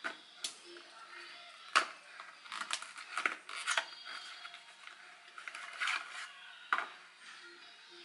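Skincare bottles and small cardboard boxes knocking down onto a hard countertop in a few sharp taps. Between the taps comes the crinkling and scraping of a cardboard product box being opened and a tube slid out of it.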